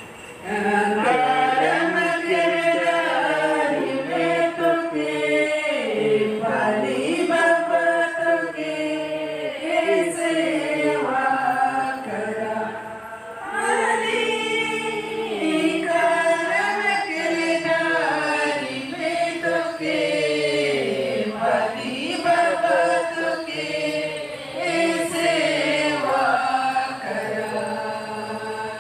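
A group of women singing a Sarna devotional prayer song together in unison, unaccompanied, in long sung lines with short breaks between them.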